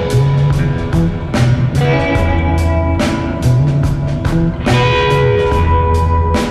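Background music: a guitar-led track with a moving bass line and regular drum hits.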